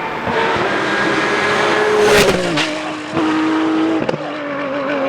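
Rally car engine at high revs, with a loud thump about two seconds in after which the engine note drops sharply; the engine note carries on, with two more sharp knocks later.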